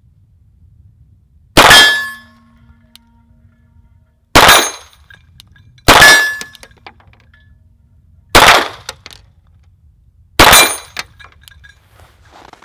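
Five 9mm pistol shots, irregularly spaced about one and a half to two and a half seconds apart. A 10-inch steel gong rings briefly after some of them as the bullets strike it.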